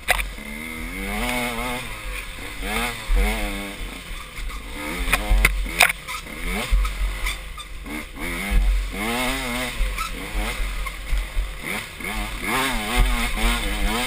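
Dirt bike engine revving up and down over and over as the throttle is worked on a rough trail, with wind rush and a few sharp knocks about five to six seconds in.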